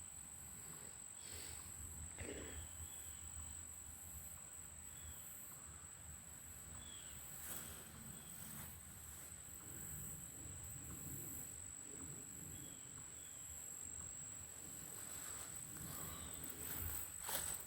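Insects, crickets or katydids, keeping up one steady high-pitched drone, with a few short faint chirps. Near the end come brushy rustles of footsteps in the undergrowth.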